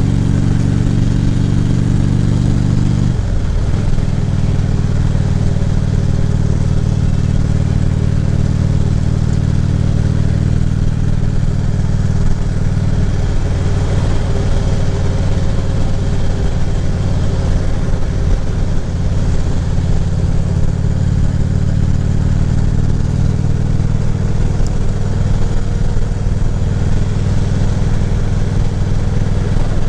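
Harley-Davidson Ultra Classic Limited's V-twin engine running steadily. Its note drops in pitch about three seconds in, then holds steady.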